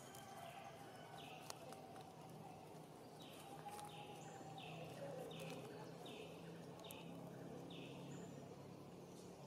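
A bird calling a run of short, high notes, each falling in pitch, about two a second, faint over a steady outdoor background.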